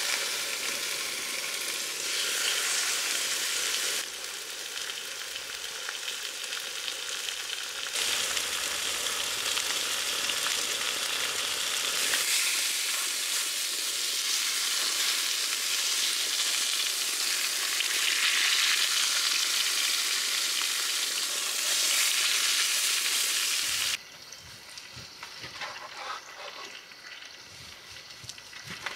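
Steaks sizzling loudly and steadily in a hot frying pan on a propane camp stove. About four seconds before the end the sizzling stops and gives way to a much quieter stretch with a few light knocks.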